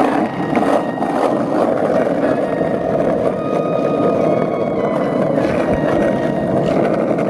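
Skateboard wheels rolling over rough asphalt: a steady rumble with a few light clicks.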